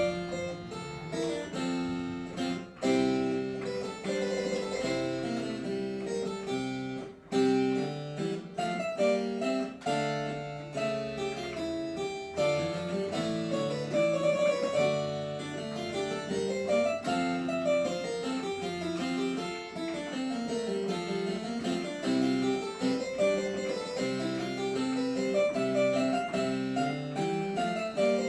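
Virginal, a small Renaissance plucked-string keyboard, playing a galliard. Past the middle, a long run of notes falls step by step and then climbs back up.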